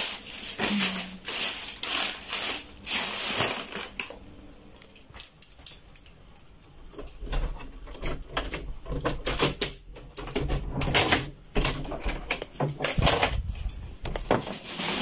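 Handling noise at a refrigerator: a run of clicks, knocks and rustles as things are moved about. It is louder in the first few seconds, quieter around the middle, then picks up again over a low rumble of the phone being moved.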